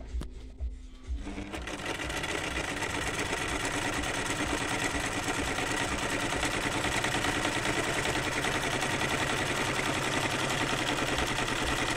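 Chaika 144A sewing machine stitching a triangle-pattern decorative stitch through fabric. A few soft knocks come first, then the machine starts about a second in and runs steadily at speed.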